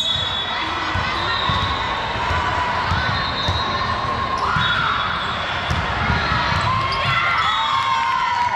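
A ball bouncing repeatedly on a gym floor, with a steady background of crowd voices in a large, echoing hall.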